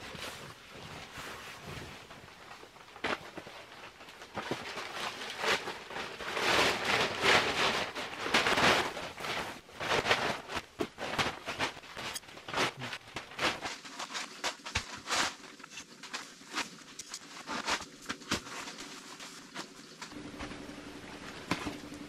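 Canvas rustling and footsteps as someone comes into a canvas wall tent, followed by a run of irregular knocks and taps as boots are pulled off and set down.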